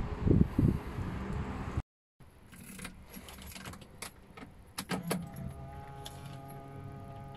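Low rumbling handling noise, then after a cut, car keys clicking and jangling at the ignition of a Mercedes-Benz W114. About five seconds in, a steady electrical hum comes on as the ignition is switched on, before the engine starts.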